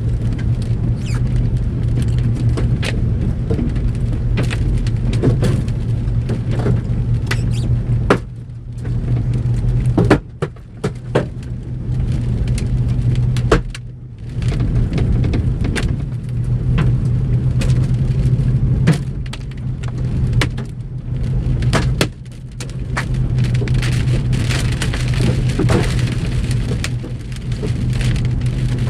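Large hailstones, about 2 to 2.5 inches across, and rain striking a vehicle's roof and windshield hail guards, heard from inside the cab. The hits are sharp and irregular, some very loud, over the vehicle's steady low hum, with a few brief lulls.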